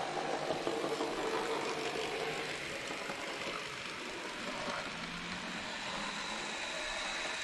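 Graham Farish N gauge Class 47 model locomotive running along the track, a steady whir of its motor and drive gears with light clicking of the wheels, just after new final-drive gears were fitted to its bogies.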